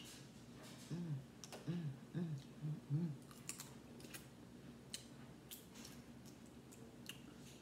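Boiled crawfish being peeled by hand and sucked, with scattered sharp clicks from the shells and mouth. About a second in come five short, low hummed "mm" sounds in quick succession.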